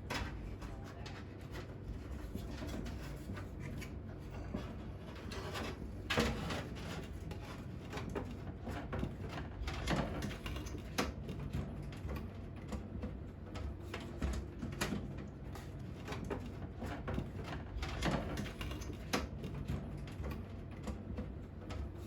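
Hands handling computer parts and cables: scattered light clicks, knocks and rubbing, over a steady low hum. The sharpest knocks come about six seconds in and again around ten seconds.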